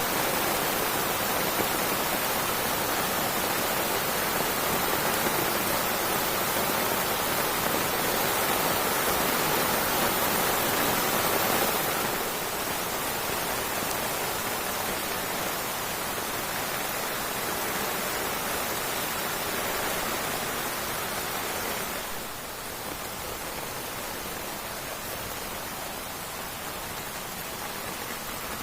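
Steady heavy rain, a dense even hiss, stepping down a little in level about twelve seconds in and again about twenty-two seconds in.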